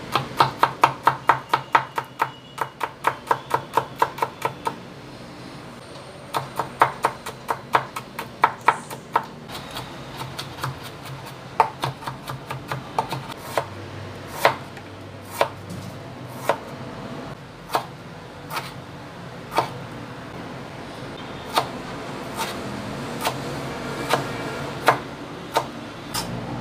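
Cleaver chopping on a wooden cutting board. A fast run of about four strokes a second mincing garlic, then slower single cuts about once a second through carrot.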